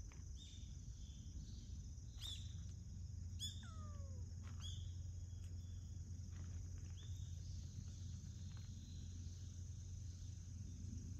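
Outdoor ambience of short, high bird chirps repeating, over a steady high-pitched insect drone and a low rumble. About three and a half seconds in, one longer call glides down in pitch.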